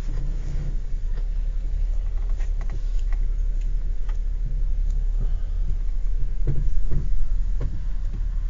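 Car engine running, heard from inside the cabin as a steady low rumble, with a few faint clicks and knocks.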